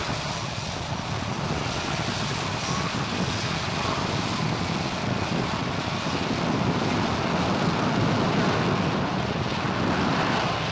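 RAF F-35B Lightning hovering on engine and lift fan: a loud, continuous rush of jet noise that swells louder from about halfway through.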